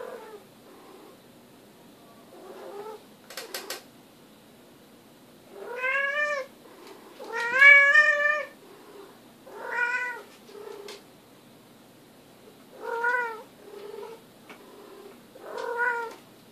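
Domestic tabby cat yowling during a mating mount: about five drawn-out, wavering cries, the second one the longest and loudest. A few sharp clicks come early, before the first cry.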